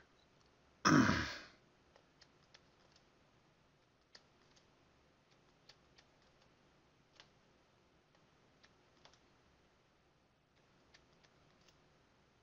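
Faint, irregular clicks and taps of a stylus on a pen tablet or touch screen while numbers are handwritten, a few taps a second at most. About a second in there is one short, louder breath or throat sound.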